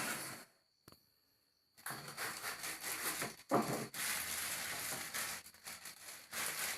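Packaging being handled and unwrapped, a dense crackling rustle with many small clicks that starts about two seconds in and goes on without a break.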